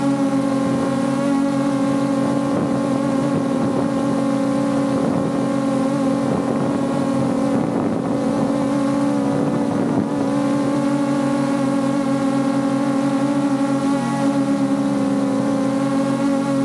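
AE86 Pro Max quadcopter drone's motors and propellers whining steadily in flight, heard from a camera slung directly beneath it, with wind noise on the microphone. The pitch dips slightly and briefly about fourteen seconds in.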